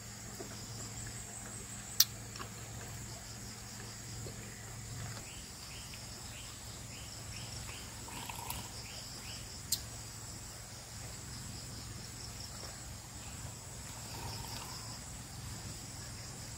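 A steady, high insect chorus in forest, with a low hum beneath it. Midway comes a quick run of about ten short repeated chirps, and two sharp clicks stand out, one about two seconds in and one near ten seconds.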